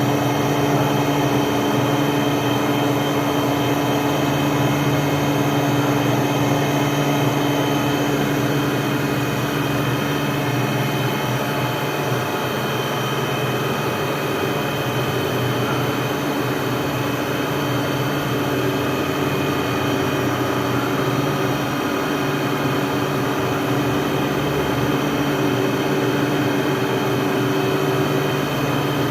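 CNC machine running steadily, a low hum with several high steady whining tones over a constant mechanical noise.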